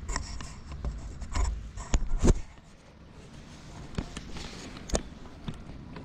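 Rustling and knocking of clothing against the camera as a grey cat climbs onto a crouching person's lap: scattered sharp clicks, with the loudest knocks about two seconds in and a low rumble over the first couple of seconds.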